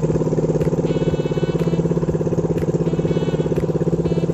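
Inboard engine of a motorized outrigger fishing boat (bangka) running steadily under way, a fast, even chugging.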